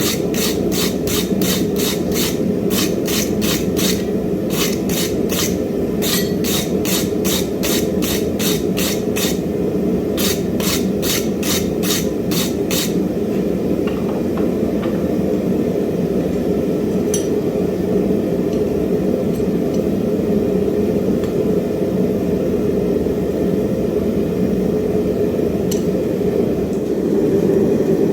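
Quick, evenly spaced hammer blows on iron, about three a second, over a steady low roar; the hammering stops about 13 seconds in, leaving the roar alone.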